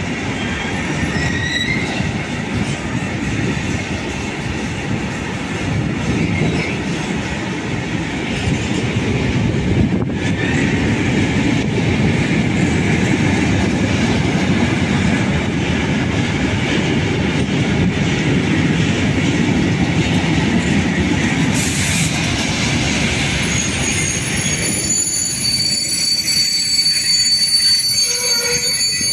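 Freight train of covered hopper wagons rolling past at close range: a steady rumble of wheels on the rails, with brief high wheel squeals now and then. Near the end the rumble thins and steady high-pitched squeals ring out.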